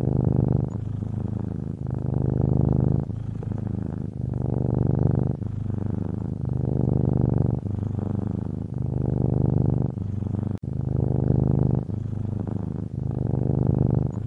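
A domestic cat purring steadily, a low fluttering rumble that swells and eases in turn with each breath, with a louder phase about every two seconds.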